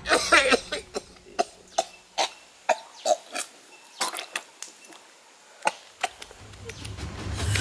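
A man's throat giving a dozen or so short, sharp vocal jerks at uneven gaps, like coughs or hiccups.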